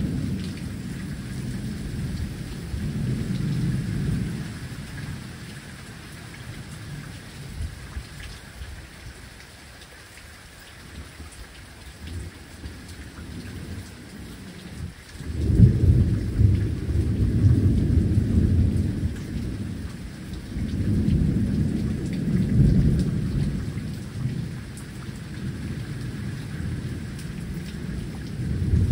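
Steady rain falling, with low rolling rumbles of thunder that swell and fade several times, quieter through the middle and loudest from about halfway on.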